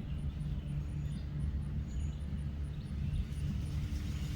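An old motor running steadily at a distance, a low drone with a held hum that sounds like a boat motor on the water.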